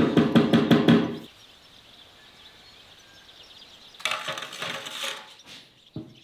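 Rubber mallet tapping fast on a granite countertop slab, about six blows a second, bedding the slab level on its mortar; the tapping stops about a second in. After a pause, a scraping noise lasts about a second and a half.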